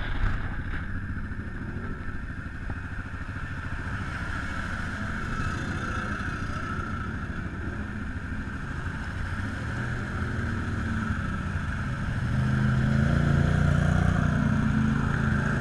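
Utility side-by-side's engine running under load as it drives through shallow floodwater, with water churning around the wheels. About twelve seconds in the engine gets louder and its pitch climbs.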